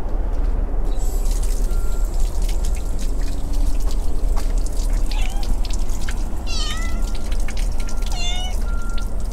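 A cat meowing twice, short calls about six and a half and eight seconds in, over a steady low rumble.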